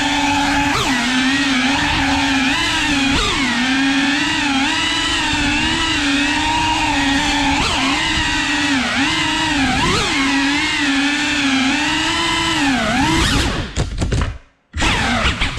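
Cinewhoop FPV drone's motors and ducted propellers whining, the pitch wavering up and down and dipping sharply with each throttle change. Near the end the sound breaks up and drops out for about half a second, then rises again.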